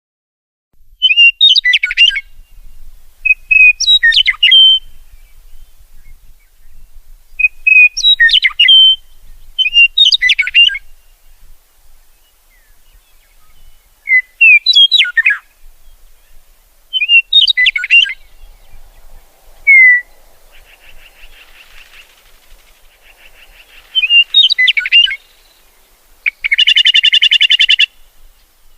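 A songbird singing short, complex warbled phrases repeated every two to three seconds, ending with a fast buzzy trill near the end.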